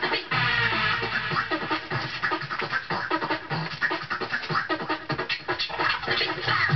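Vinyl scratching over an electronic dance track, with the bass drum dropped out; a heavy, regular kick drum comes back in right at the end.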